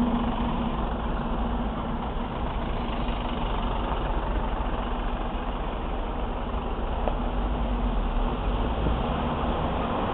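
Car engines idling in stopped street traffic, heard from inside a car: a steady hum with a low drone that drops away near the end.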